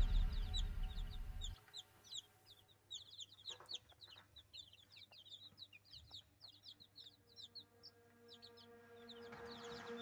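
A brood of young chicks peeping, a dense stream of short, high cheeps that each fall in pitch. Background music fades out in the first second and a half and comes back near the end.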